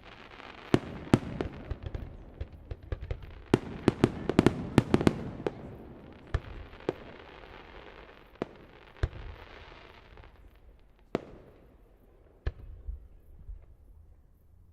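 Fireworks display going off: a dense run of sharp bangs in the first five seconds over a crackling hiss, then single bangs a second or more apart, thinning out near the end.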